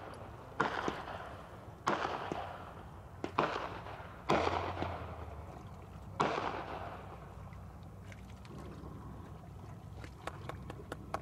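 Aerial firework shells bursting: five booms in the first six seconds, each trailing off in a long echoing tail, then a quieter stretch with faint crackling near the end.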